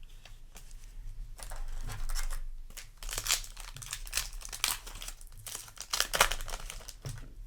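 Foil booster pack wrapper crinkling and tearing as it is handled and torn open, in irregular crackly rustles that are busiest in the middle.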